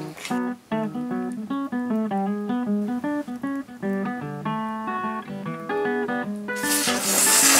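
Background music: acoustic guitar picking a quick melody of separate plucked notes, with a short bright hissy swell near the end.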